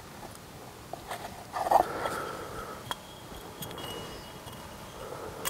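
Faint clicks and light handling sounds of an oil control ring being worked into its groove on a piston by hand, with one brief louder sound about a second and a half in.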